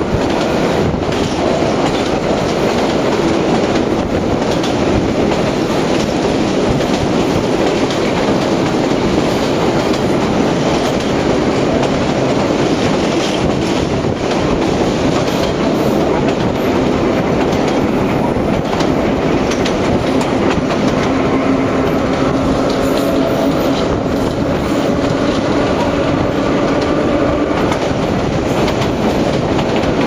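Vintage Low-V subway car running along elevated track, a steady loud rumble with wheels clacking over the rail joints. Faint whining tones join in about two-thirds of the way through and fade before the end.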